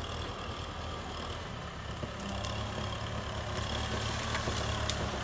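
Kubota M6040SU tractor's diesel engine running steadily at low speed as the tractor moves through grass. In the second half a few light cracks and clicks come through as the front blade pushes into dry brush.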